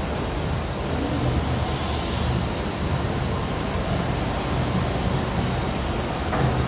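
Steady low hum and drone of running machinery on a garment screen-printing floor, with a short clack near the end.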